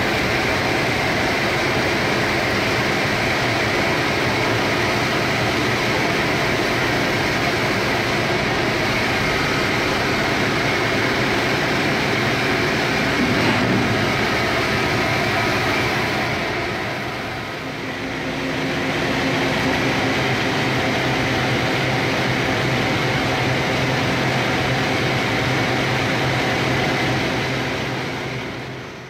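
Steady, loud industrial machine noise with a constant hum: an explosion-proof industrial vacuum drawing carbon black dust through a dust extraction swing arm, mixed with other plant machinery. It dips briefly about two-thirds of the way through and fades out at the end.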